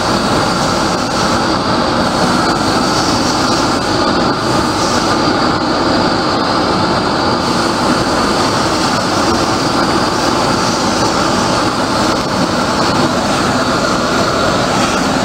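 Large gas torch burner flame running with a steady rushing noise and a faint high whistle, heating a bronze casting during hot patination.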